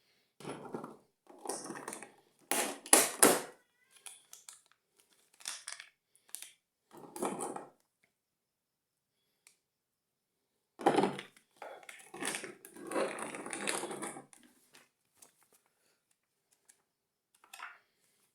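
Packaging being handled and crinkled during an unboxing, in irregular rustling bursts. The loudest bursts come about three seconds in and again about eleven seconds in, with a pause of a few seconds between them.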